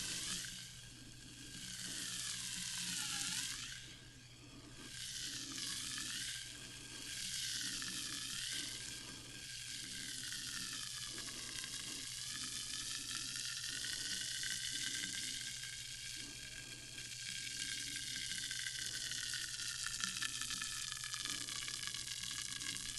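Sparkling water fizzing: a continuous crackling hiss of tiny carbonation bubbles bursting. It swells and fades every couple of seconds at first, then settles into a steadier fizz.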